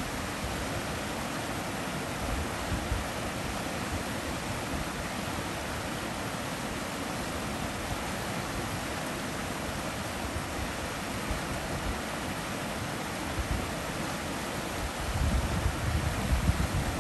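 Shallow stream rapids rushing steadily over stones. A few low rumbles come in near the end.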